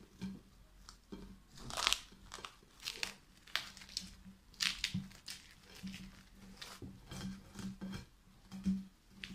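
Plastic cling film crinkling and crackling in an irregular run as it is peeled off a bowl of risen dough.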